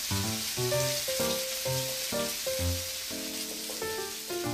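Hiroshima-style okonomiyaki sizzling on a hot steel teppan griddle while sauce is brushed on, a steady fine hiss. Background music with a melody of short notes and a bass line plays over it, louder than the sizzle.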